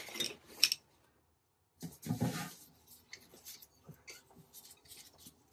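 Hand tool working at a rusted toilet bolt and nut. There are sharp metal clicks just under a second in, a longer noisy scrape about two seconds in, then faint scattered ticks of handling.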